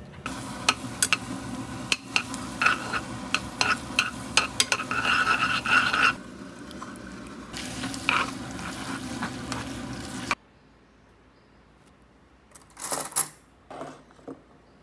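Fettuccine in tomato sauce sizzling in a frying pan while metal tongs toss it, with many sharp clicks and scrapes of the tongs against the pan. After about ten seconds it cuts off to quiet, and a couple of short clinks come near the end.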